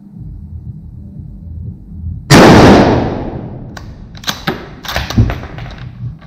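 A bolt-action rifle fires a single loud shot about two seconds in, echoing in an indoor range. The bolt is then worked, with several sharp metal clicks.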